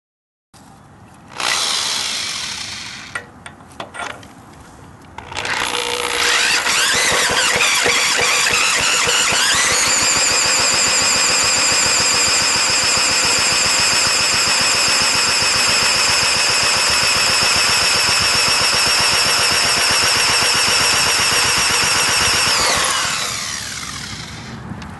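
Electric drill spinning an antique 5 HP Briggs & Stratton engine over by its flywheel nut through a 7/8 socket. A short spin about a second in and a few clicks, then the drill's whine rises for several seconds, holds steady for about twelve seconds and falls away near the end. The engine turns over without firing, which the owner puts down to a bad spark plug or low compression.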